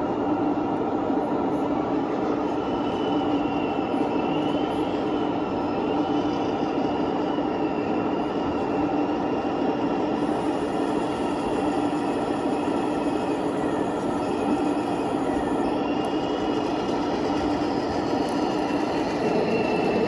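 A 1/16-scale remote-control Leguan bridge-layer tank model running, with a steady mechanical drone and a faint high whine that wavers in pitch.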